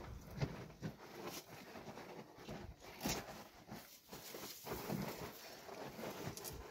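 Faint, scattered rustles and small snaps of dry grass and twigs being handled and arranged to lay a campfire.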